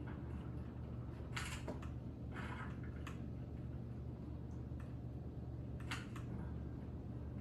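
Computer keyboard keys tapped in scattered bursts over a steady low hum.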